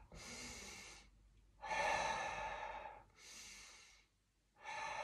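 A man's slow, paced yoga breathing: four audible breaths, in and out, each about a second long with short pauses between.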